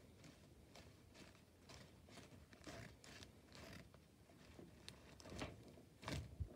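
Faint rustling and light scraping of a paper cut-out doll jiggled against tissue paper, about two strokes a second, with a louder handling knock near the end.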